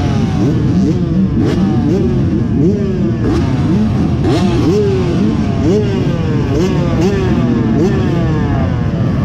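A pack of off-road dirt bikes accelerating hard away from a race start. Their engines rev up and shift again and again, in many overlapping rising whines.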